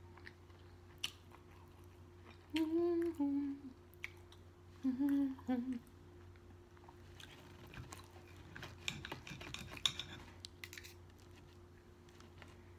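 A metal knife and fork scrape and click against a plate while cutting meat, busiest from about seven to eleven seconds in. Twice, near three and five seconds in, a short closed-mouth hum sounds louder than the cutlery.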